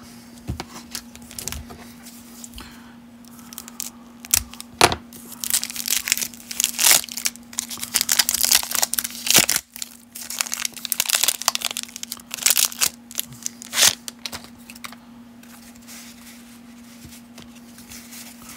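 Plastic cellophane wrapper of a 1992 Topps baseball card cello pack being torn open and crumpled by hand, in loud crackling bursts for about ten seconds, then quieter card handling. A faint steady low hum runs underneath.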